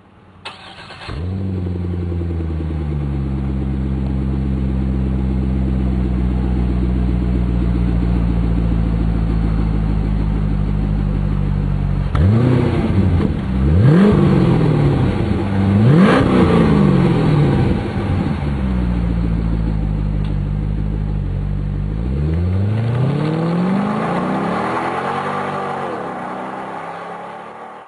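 C6 Corvette V8 through an SLP Power-Flo cat-back exhaust, starting up about half a second in and settling into a steady idle. Midway it is revved in a series of quick throttle blips, then idles again. Near the end it accelerates away and fades.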